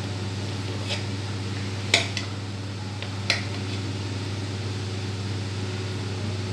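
A spoon clicks against the serving dish a few times as cooked biryani rice is moved about, the two loudest clicks about two and three seconds in, over a steady low hum.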